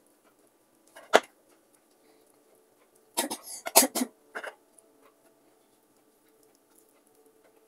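Kitchen knife cutting boiled pork on a wooden chopping board, with one sharp knock about a second in. Around three to four seconds in comes a short run of loud coughs.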